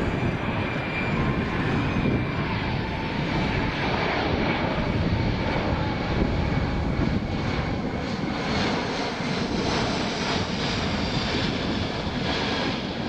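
Boeing C-17 Globemaster III's four turbofan jet engines running in a steady jet roar as it flies past, with a thin turbine whine that sits higher in the second half.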